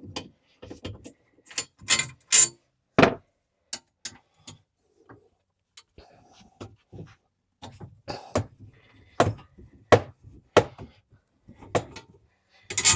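Irregular metal clicks, knocks and clanks of hand tools and bolts as a UTV seat bracket is unbolted with an Allen key and worked loose. Several louder clanks stand out, among them two about two seconds in and one near the end.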